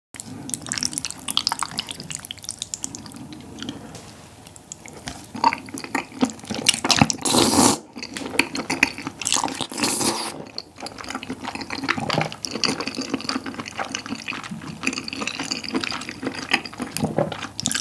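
Close-miked wet eating sounds of spicy tteokbokki with sauce-soaked glass noodles: sticky chewing and smacking, with two loud slurps of about a second each, around 7 and 10 seconds in.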